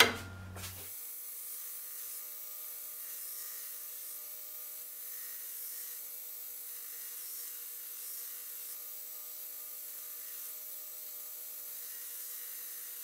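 Belt grinder running with a Damascus steel dagger blade held against its abrasive belt to grind a bevel: a faint, steady, thin hiss with a light hum, unchanging throughout.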